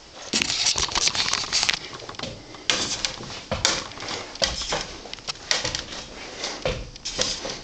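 Footsteps climbing bare wooden stair treads: an uneven run of knocks and scuffs.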